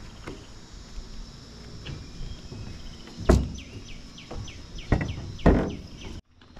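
Footsteps on a wooden plank walkway between railway rails, with a few loud hollow thumps. Behind them is a steady high whine and a bird calling in a quick run of falling notes. The sound cuts off suddenly near the end.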